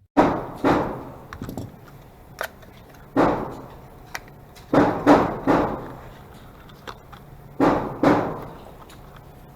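Glock 44 .22 Long Rifle pistol firing about eight shots in uneven groups (two, one, three, two), each a sharp crack with a short echoing tail.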